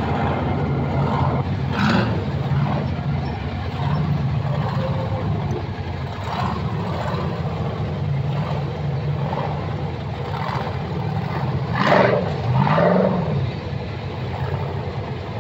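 Off-road tube-chassis rock buggy's engine revving in repeated bursts as it climbs a rocky hillside, its pitch rising and falling with the throttle. The loudest is a quick rise and fall in pitch about twelve seconds in.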